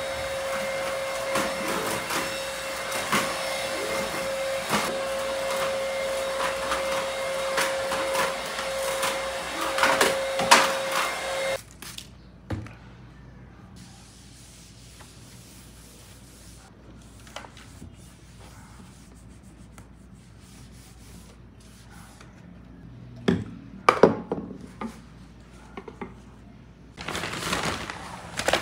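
A small electric appliance motor running with a steady whine and rattle, switched off abruptly about a third of the way in. After that come light clicks and a few sharper knocks of objects being handled.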